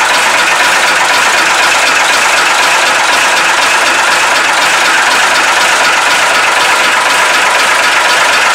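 Praga S5T truck's air-cooled diesel engine idling steadily.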